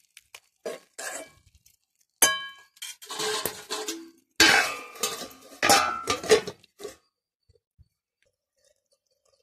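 A steel spoon scraping and clinking against a kadai while stirring chicken fry, with one sharp ringing metal clink about two seconds in. Then a louder metal clatter runs from about four to seven seconds as a stainless steel plate lid goes onto the pan, and after that it is quiet.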